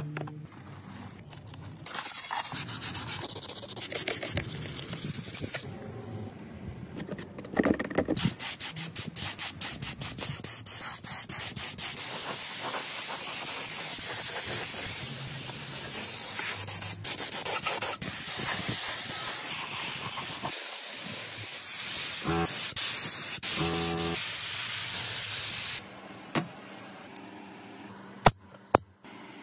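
A rotary wire cup brush scrubbing rusty motorcycle exhaust parts in rapid strokes, then a long steady hiss of red paint being sprayed onto a motorcycle part. The hiss cuts off a few seconds before the end, leaving a few sharp metallic clicks.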